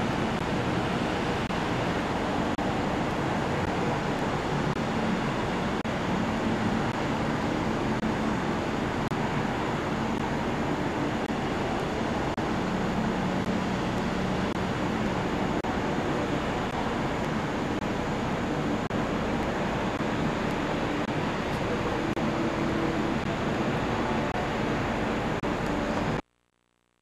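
Steady hum of distant city traffic, an even wash of noise with faint low drones in it, cutting off suddenly near the end.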